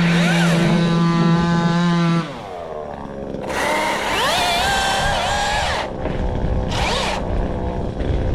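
Battery top-handle chainsaw running at a steady pitch, then released about two seconds in and spinning down, with no idle. It runs again in a longer burst whose pitch wavers and a brief blip near the end.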